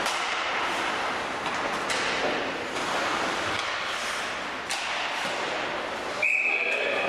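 Ice hockey rink noise of skates on ice with a few sharp clacks of sticks and puck, then about six seconds in a referee's whistle sounds one steady blast, stopping play.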